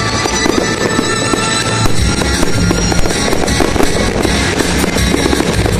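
Aerial fireworks bursting and crackling, with music playing loudly throughout.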